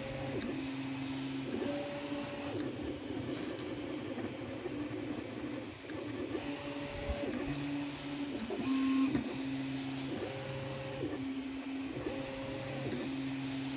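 Original Prusa Mini 3D printer printing: its stepper motors whine in steady tones that jump to a new pitch every half second to a second or so as the print head changes moves, over a constant mechanical whir.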